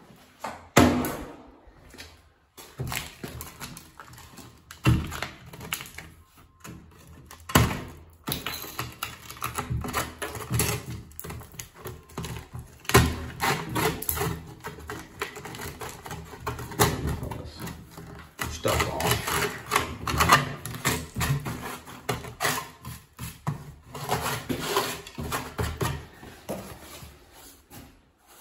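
Handling noise: hands moving plastic fittings and cardboard packaging about, a steady run of clicks, rustles and clatter with a few sharp knocks, the loudest about a second in and again near five and eight seconds.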